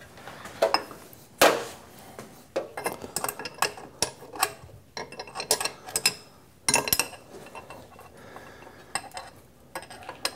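Wrenches and metal parts clinking and clattering in irregular runs of sharp knocks, the loudest about a second and a half in. This is hand work on the motor's mounting nuts.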